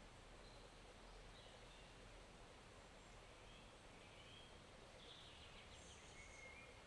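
Faint, steady rush of a small forest stream, with a few faint bird chirps scattered through.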